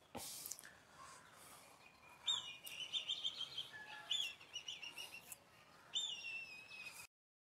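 Small birds chirping: a run of short, quick, high chirps from about two seconds in, with a longer falling call near six seconds. A brief scuffing noise comes just after the start, and the sound cuts off suddenly near the end.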